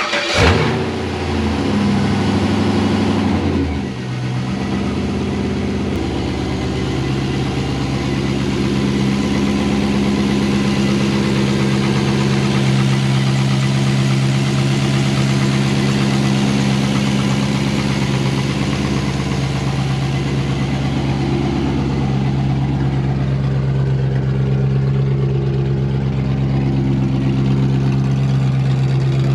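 5.3 L Vortec V8, swapped into the car and running a straight-pipe exhaust, firing up with a quick surge of revs, then a fast idle that drops about four seconds in to a steady idle.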